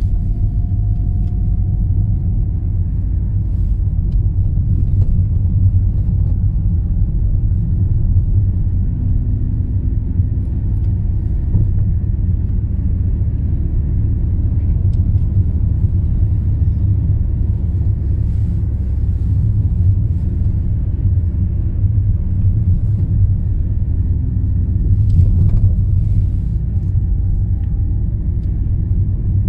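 Steady low rumble of a moving car heard from inside it: engine and tyre road noise, unbroken throughout.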